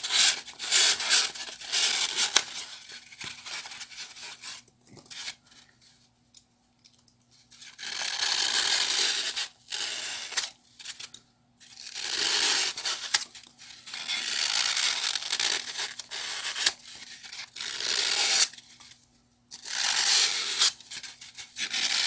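A small blade cutting and scraping through dry floral foam, in repeated bouts of scratchy, crunching rasping separated by short pauses, the longest a few seconds after the first bout.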